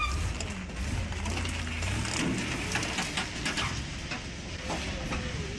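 Heavy log truck's engine running with a low rumble that eases about two seconds in, with scattered crackling and clicking over it.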